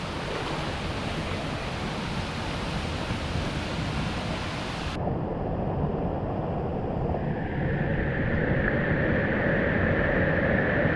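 Steady rush of a waterfall's falling water. About five seconds in, the high end cuts out abruptly and the rush turns muffled, then grows a little louder with a steady hollow tone.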